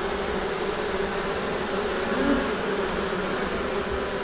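A honeybee colony buzzing at the hive, a steady, even hum: busy working and not stressed.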